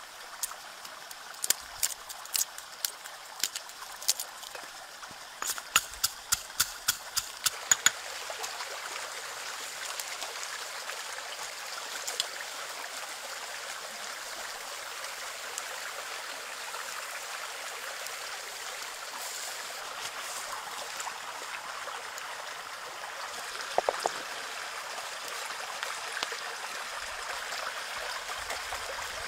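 Stone pestle pounding black peppercorns in a stone mortar: sharp knocks, with a quick run of strikes about six to eight seconds in. After that a steady watery hiss carries on, with a couple more knocks near the end.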